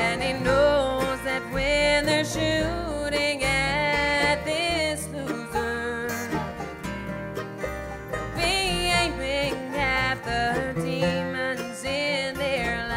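Live bluegrass band playing without singing: banjo, mandolin, fiddle, acoustic guitars and upright bass, with a melody line that slides and bends in pitch.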